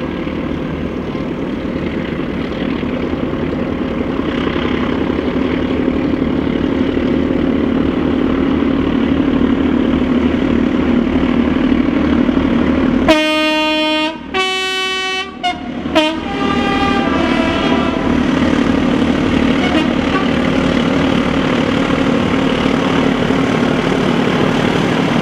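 A rake of BR Class 14 'Teddy Bear' diesel-hydraulic locomotives, each with a Paxman Ventura diesel engine, working hard together as they haul a train, a steady engine drone growing louder as they approach. About halfway through, a locomotive's two-tone horn sounds: a lower note, then a higher one, then a short blip.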